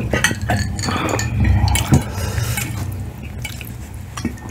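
Cutlery clinking and scraping against plates during eating, in a series of short, sharp clinks.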